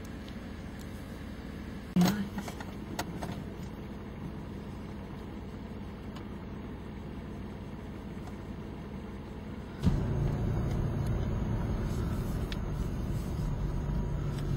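Car engine and road noise heard from inside the vehicle, a low steady rumble. A single sharp knock comes about two seconds in, and about ten seconds in the rumble steps up suddenly and stays louder as the car drives slowly on.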